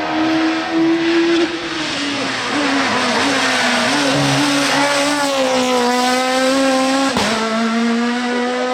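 F2000 two-litre rally car engine running flat out at high revs, its pitch dipping slightly and climbing back. About seven seconds in there is a sharp break, then the engine again at a steady high pitch.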